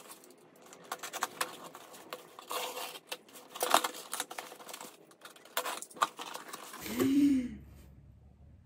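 Cardboard shipping box being opened by hand: flaps pulled back and cardboard rustling, with scattered scrapes and taps. Near the end there is a brief hum of voice.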